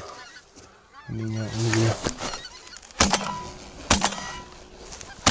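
Shotgun fired three times at incoming geese, at about three, four and five seconds in, roughly a second apart, as the action throws out the spent shells. Geese are honking overhead.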